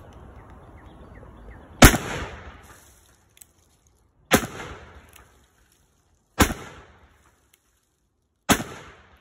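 Four shots from an 1847 Walker replica, a .44 black-powder cap-and-ball revolver, about two seconds apart, each sharp crack trailing off in a short echo.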